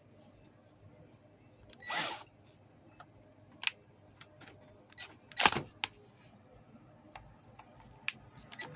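A cordless drill with a socket on a seized bike seat-clamp bolt, run in a few short bursts that fail to turn it, with sharp clicks and knocks of the tool in between. The loudest burst comes about five and a half seconds in, and another starts at the very end.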